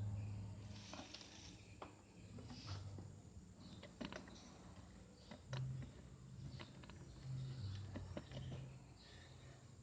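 Scattered light clicks and taps of small metal parts being handled: scroll saw blade clamps and bolts being worked on by hand.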